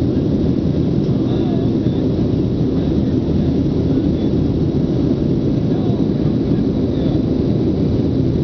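Steady cabin drone of a Boeing 737-700 in flight, heard inside the cabin by a window over the wing: its CFM56-7B turbofan engines and the airflow make a constant low roar with a faint high whine above it.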